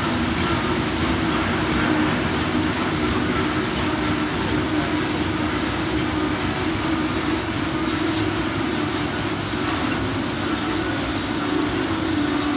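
Freight train tank wagons rolling past on the rails: a steady rolling noise of steel wheels on track, with a constant low hum running through it.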